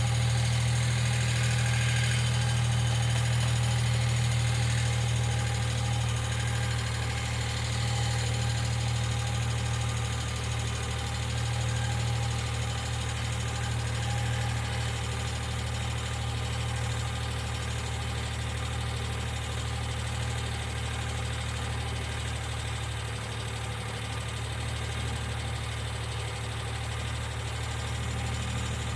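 1995 Geo Metro engine idling steadily, with the ticking of its valve lifters.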